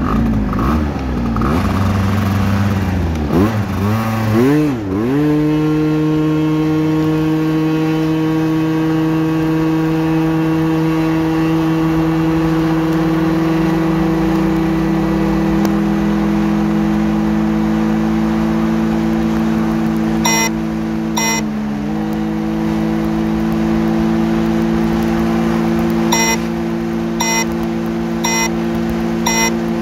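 Honda Dio two-stroke scooter engine on a 33 mm FCR carburetor, pulling at full throttle from a standstill. Its note rises and wavers for the first few seconds, then holds high and steady as speed climbs to about 100 km/h, with one brief dip about two-thirds through. Short electronic beeps sound twice around two-thirds through, then about once a second near the end.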